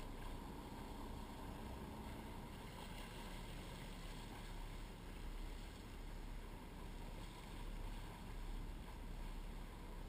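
Steady, muffled wash of sea water and wind aboard a sportfishing boat, over a constant low rumble.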